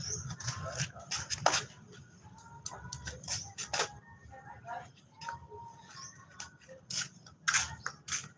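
Flip-flop footsteps on concrete and a plastic garden hose being handled: a run of short sharp slaps and clicks, loudest at the start and again near the end.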